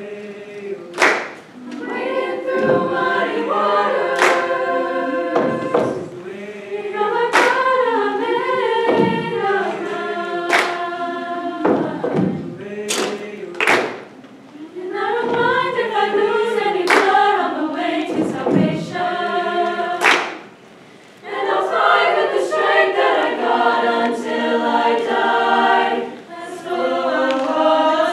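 A treble choir of upper voices singing in chordal harmony, punctuated by a dozen or so sharp percussive hits. The singing breaks off briefly about three-quarters of the way through, then the choir comes back in with a fuller chord.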